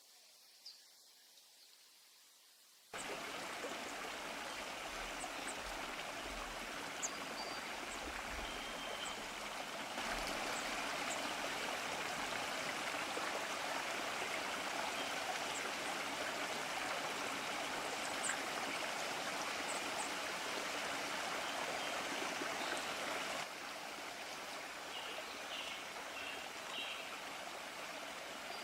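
Stream of running water, a steady rush that cuts in suddenly about three seconds in after a quiet stretch, gets louder about ten seconds in and drops back near the end. Faint high bird chirps sound over it.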